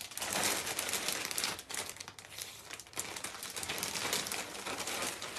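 Clear plastic bag crinkling and rustling as hands handle and open it, with irregular crackles throughout.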